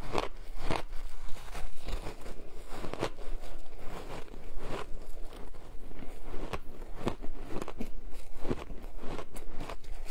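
Frozen shaved ice being bitten and chewed close to a clip-on microphone: irregular crisp crunches, about one or two a second.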